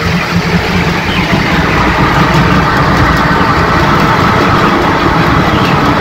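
Automatic feed-line augers and ventilation fans running in a broiler house: a loud, steady mechanical drone with a constant low hum.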